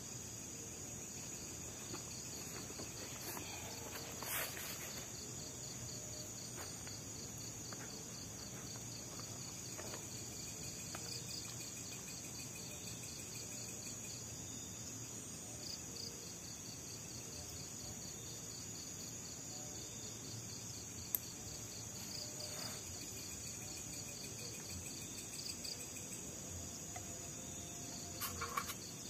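Night insects chirring steadily: a constant high-pitched buzz with a rapidly pulsing trill beneath it. A few soft clicks and knocks come from camp gear being handled, the loudest near the end.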